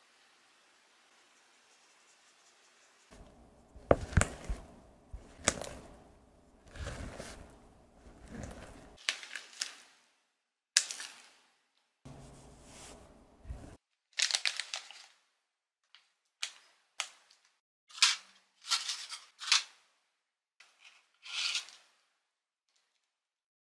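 A faint rustle of flour sifting through a mesh sieve gives way to a spatula folding thick brownie batter in a glass bowl, scraping and knocking against the glass. Near the end come separate short crinkles as a plastic piping bag is handled and squeezed, with a snip of scissors, while batter is piped into paper muffin cups.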